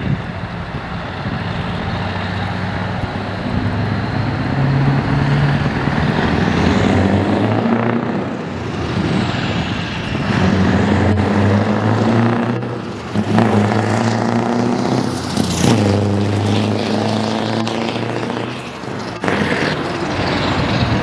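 Scania R500's V8 diesel engine pulling a loaded-looking livestock semi-trailer, accelerating and easing off as the truck drives around. Its pitch climbs and falls back several times as it shifts and turns.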